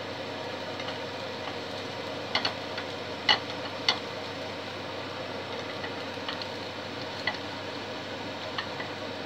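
Pancake frying in a non-stick pan on a gas hob with a steady low sizzle, while a spatula taps against the pan several times, the loudest taps between about two and four seconds in.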